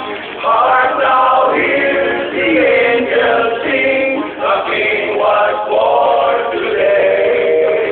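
A group of men singing together as a choir, holding each note for about a second before moving to the next.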